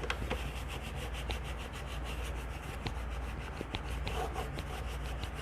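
A cloth rag rubbing and wiping over a surface in short scrubbing strokes, with a few light clicks.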